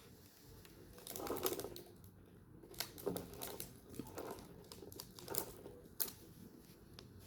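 Irregular light clicks and crinkling.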